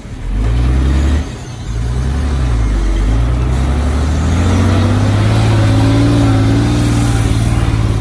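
Heavy diesel engine revving hard. It drops back briefly just over a second in, then climbs again and holds at high revs.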